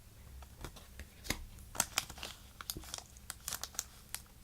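Pokémon trading cards and their packaging being handled: a run of irregular, crisp crinkles and clicks.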